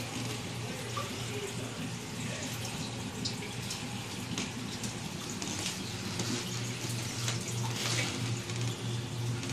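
Saltwater reef aquarium's water circulation: a steady rush and trickle of moving water with small splashy crackles, over a low steady pump hum.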